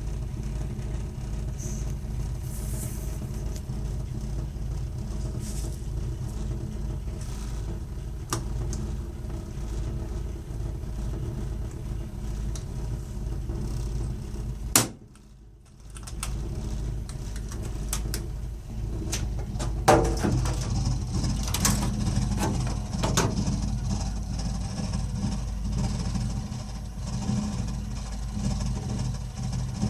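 Burnham Alpine ALP150W gas-fired boiler running with a steady low rumble, the strange noise whose cause the owner doesn't know. Scattered sharp clicks sound through it, and about halfway a loud click is followed by a brief dip before the rumble comes back.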